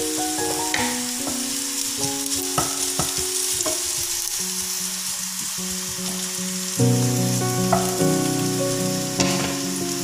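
Julienned ginger and garlic sizzling in hot oil in a frying pan, stirred with a spatula that knocks and scrapes against the pan a few times. Background music plays throughout.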